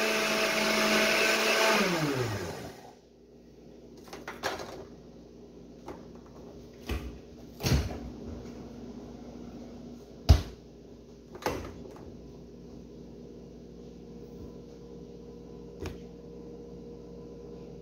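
Countertop blender motor running, then switched off about two and a half seconds in, its pitch sliding down as it winds down. After that it is quiet apart from a few scattered short knocks and clicks.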